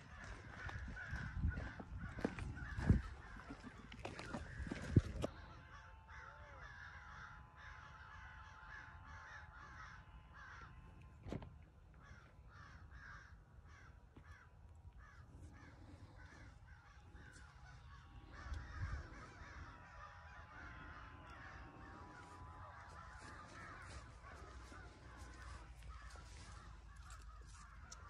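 Crows cawing over and over in the distance, many short calls throughout. Low thumps of handling or wind on the microphone in the first five seconds.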